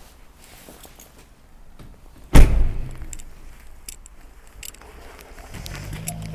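One loud slam about two seconds in, then a steady low hum that starts near the end.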